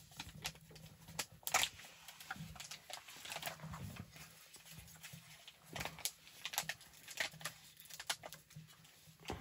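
Small kindling fire crackling and snapping in the firebox of a G-Stove camp wood stove with its door open, in irregular sharp pops. Near the end a few knocks come as a hand shifts the burning wood.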